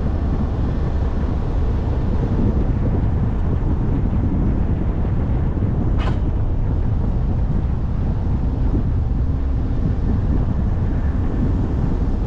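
Steady wind buffeting the microphone, a low rumble without any tone, with one short high click about six seconds in.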